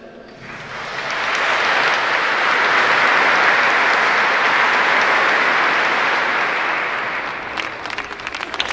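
An audience applauding, swelling up about half a second in and holding steady, then thinning out near the end into separate, sharper claps.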